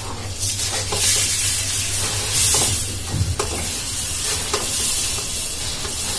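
Puffed rice (kurmure) being poured by hand into hot oil in a kadhai, sizzling and rustling as the grains land, with a few light ticks among the hiss.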